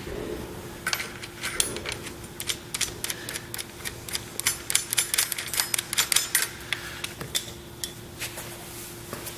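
Screwdriver shafts clicking and ticking against a steel coil seat spring and its nut as a nylock nut is worked onto the bolt by hand. The clicks come in an irregular rattle, densest through the middle and thinning out near the end.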